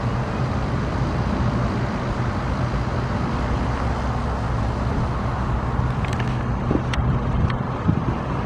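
Steady road-traffic and engine noise with a constant low hum. A few sharp clicks come near the end.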